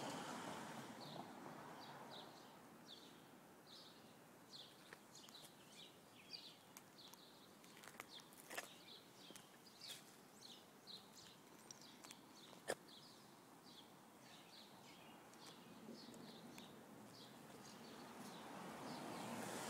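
Faint outdoor quiet with a small bird chirping over and over, about two short high chirps a second, and two sharp clicks, the louder one about two-thirds of the way through.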